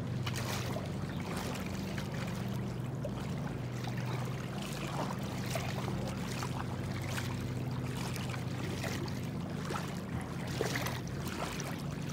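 Lake water sloshing and splashing irregularly as a person wades through it, pushing a floating dock section on foam floats, over a steady low hum.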